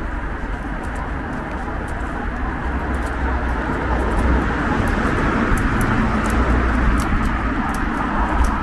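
Street ambience dominated by road traffic going by, a steady rush of tyres and engines that swells slowly louder over the seconds, with a few faint clicks.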